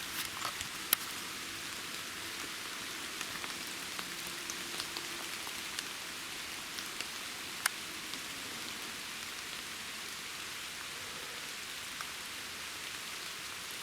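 Steady rain falling, an even hiss, with a few sharp ticks scattered through it, the loudest about a second in and again near eight seconds in.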